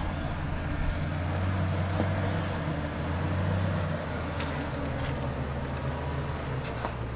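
Off-road vehicle's engine running steadily at low revs as it crawls slowly over rock, with a few faint clicks from about two-thirds of the way in.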